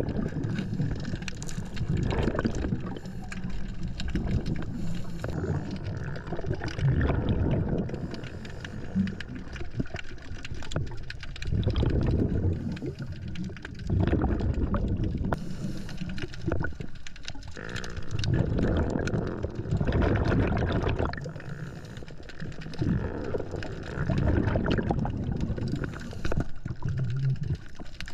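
Scuba diver breathing through a regulator underwater: the exhaled bubbles gurgle past the camera in loud swells every two to three seconds.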